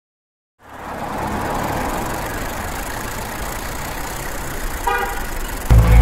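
Steady road and traffic noise with a low rumble, starting about half a second in after silence; a brief vehicle horn toot near the end, just before loud music cuts in.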